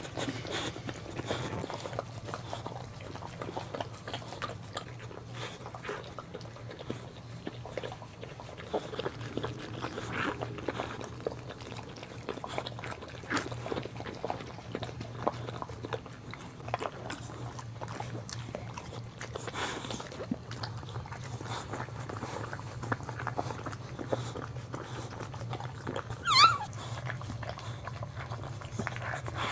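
Boxer mother dog licking and cleaning her newborn puppy: repeated wet licking, smacking and chewing sounds. About 26 seconds in, a short high-pitched squeal from the newborn puppy is the loudest sound.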